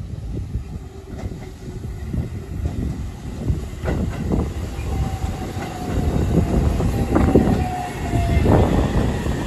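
JR Central Series 313 3000-subseries electric train pulling into the station: wheels clacking over rail joints and a running rumble that grows louder as it nears. A thin, slightly falling whine from its Toshiba IGBT VVVF inverter runs for a few seconds in the second half as it brakes.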